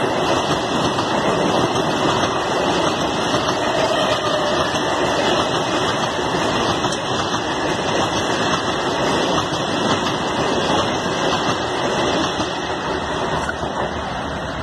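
Vande Bharat Express (Train 18) electric trainset passing close by at speed: a steady, loud rushing noise of wheels on rail and air, easing slightly near the end.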